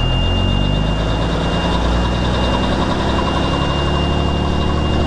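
A 5-ton army truck's engine heard from inside the cab, rising in pitch over the first couple of seconds as the truck pulls away in gear, then holding steady. A thin, steady high-pitched whine sits over it.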